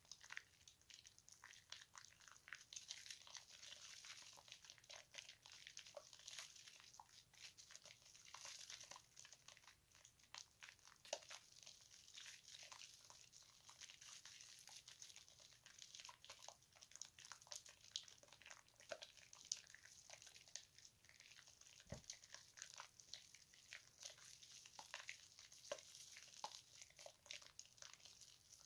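Hands lathering a wet bar of soap: faint, continuous wet squishing and crackling of thick foam, full of tiny pops and clicks.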